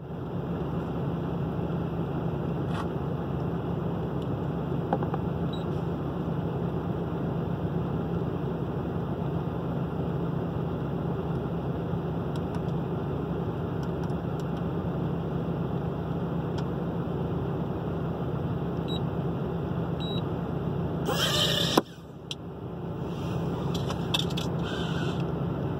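Steady hum throughout. About 21 seconds in, a mini quadcopter's motors whine, rising in pitch for under a second as it lifts off, then cut off sharply with a knock. The hum drops out and then gradually returns, with a few clicks near the end.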